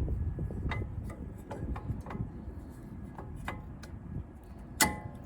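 Light metallic clicks and taps from brake pads and caliper hardware being handled and fitted, with a louder ringing metal clink near the end.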